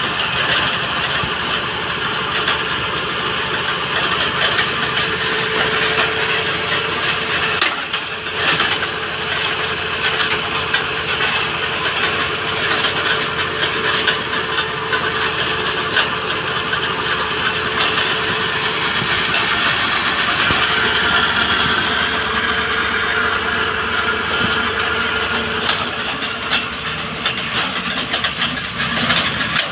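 Engine of a bore-well drilling machine running steadily, dipping briefly about eight seconds in.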